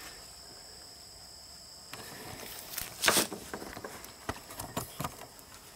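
Quiet outdoor background, then rustling and footsteps from the camera being carried. There is a louder rustle about three seconds in, followed by a few short knocks.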